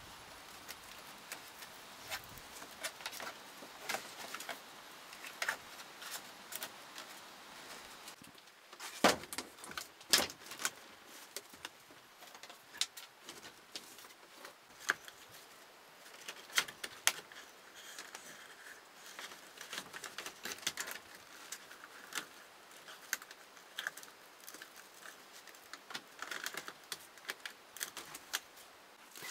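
Irregular light taps and clicks, with a few sharper knocks about nine and ten seconds in.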